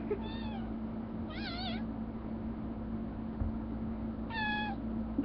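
Kitten meowing three times: short high meows, the middle one wavering up and down in pitch.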